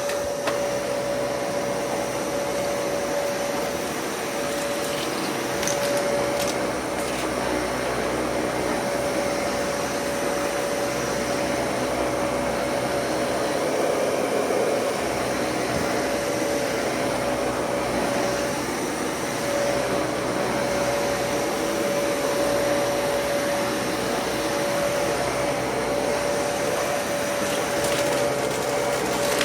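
Dyson Cinetic Big Ball upright vacuum cleaner running steadily: a constant motor whine at one pitch over the rush of air through the cleaner head.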